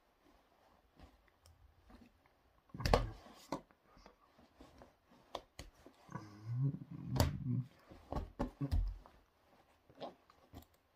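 A man's low wordless vocal sounds, mostly from about six to nine seconds in, among a few sharp clicks and rustles from hands and clothing as he signs.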